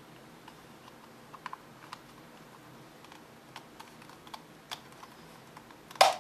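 Small scattered clicks and taps of a plastic remote temperature-humidity sensor being handled and pressed in the hands, with one louder plastic clack near the end.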